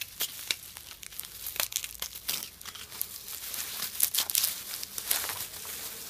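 Bubble wrap crinkling and crackling unevenly as hands pull it open and off a small object.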